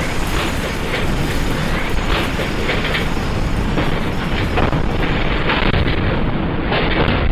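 Earthquake shaking: a loud, continuous low rumble with irregular rattles and knocks through it.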